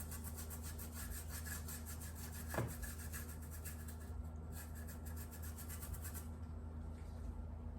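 Faint, rapid rubbing or scratching over a steady low electrical hum, with a single sharp click about two and a half seconds in; the rubbing fades out near the end.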